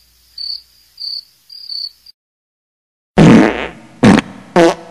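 Cricket chirping, four short chirps in about two seconds, then after a pause a run of loud, short fart sounds.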